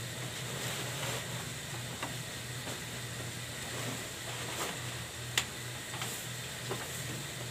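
Goats moving and feeding in a wooden-slatted pen: scattered sharp clicks and knocks, the loudest about five and a half seconds in, over a steady low hum.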